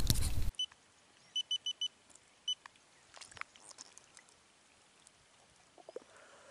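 Wind rumbling on the microphone, cut off suddenly about half a second in. Then near quiet, with a quick run of four short high-pitched beeps, one more a moment later, and a few faint ticks.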